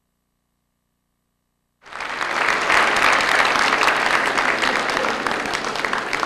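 Silent for about the first two seconds, then an audience's applause starts abruptly and carries on steadily: many people clapping after a point is awarded in a kendo match.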